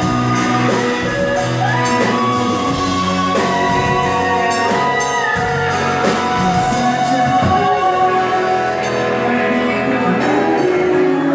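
Live pop-rock band playing a song: a sung lead vocal over electric guitars, bass and a drum kit keeping a steady beat.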